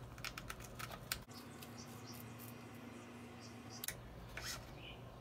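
Faint small clicks and ticks of a steel shift cable, ferrule and housing being handled and pushed into a road bike frame's internal cable port, with a faint steady hum for a couple of seconds in the middle.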